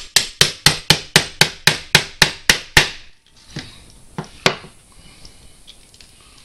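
Hammer striking the back of a steel meat cleaver to chop through a cooked catfish bone on a wooden board: a rapid, even run of sharp knocks, about four a second, that stops about three seconds in. A single knock follows a little later, then only quiet handling.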